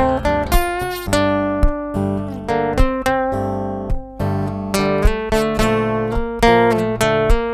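Ibanez Concord acoustic guitar, tuned down a whole tone, played amplified through its Cherub GT-4 preamp: ringing chords picked and strummed in a steady rhythm, each struck note decaying before the next.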